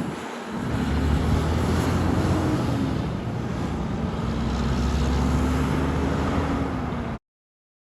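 A vehicle's engine running steadily over road noise, cutting off suddenly about seven seconds in.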